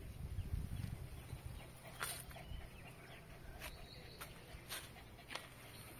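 Faint outdoor ambience with birds calling and a few short, sharp ticks, over a low rumble in the first second.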